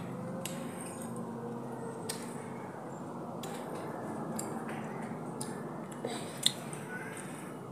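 Child eating instant cup noodles with chopsticks: scattered clicks of the chopsticks and wet, squishy eating noises over steady background noise, with one sharp click about six and a half seconds in.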